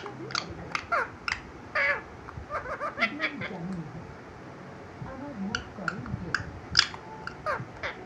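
Green parakeet chattering: a string of short, high calls and babble-like sounds of the kind talking parrots use to mimic speech and laughter.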